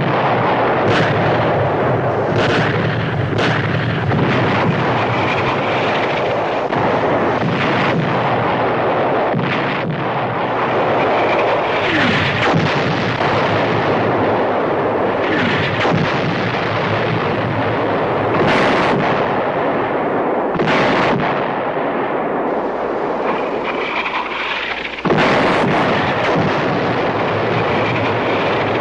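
Battle sound of continuous gunfire and artillery explosions, with sharp single blasts scattered irregularly through it. It gets suddenly louder about 25 seconds in.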